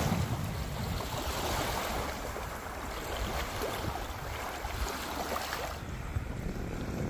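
Wind buffeting the microphone over small waves washing onto a sandy lakeshore, with light splashing in the shallows. About halfway through, the higher hiss drops away and mostly the low wind rumble is left.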